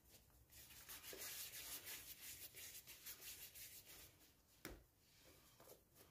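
Faint soft rubbing of hands rolling and shaping yeast dough into balls on a floured granite countertop, with a single light knock near the end.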